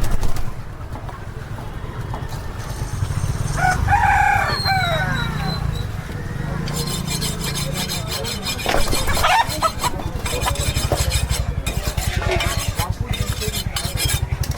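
A rooster crowing once, about four seconds in: a falling, strained call of about a second. A steady low hum with a regular pulse runs underneath.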